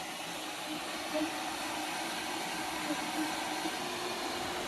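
Steady rushing hiss of a running fan, with a faint low hum under it.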